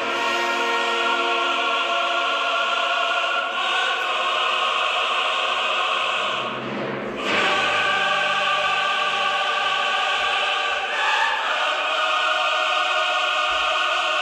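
Background music: a choir with orchestra holding long sustained chords, the harmony changing every three or four seconds.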